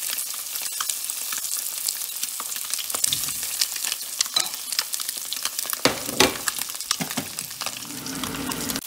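Masala-coated boiled eggs frying in hot oil in a stainless steel pan: a steady sizzling crackle, with a few sharper clicks as a fork moves the eggs against the pan.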